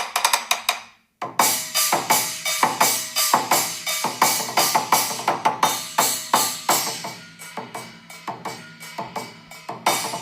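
Google Pixel 9 ringtones playing in sequence. A brief snippet of one is cut off about a second in, and then a percussion-based ringtone plays a quick, busy rhythm of sharp hits.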